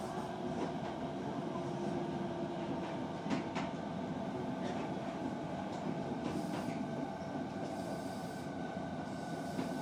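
Osaka Metro 66 series electric train running, heard from inside the car: a steady rumble of wheels on rail with thin, steady high tones over it and a few sharp clicks from the track.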